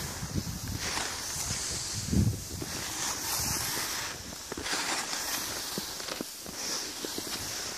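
Cross-country skis and poles swishing over packed snow in a rhythmic stride, about one swish a second, with wind rumbling on the phone's microphone and a louder rumbling thump about two seconds in.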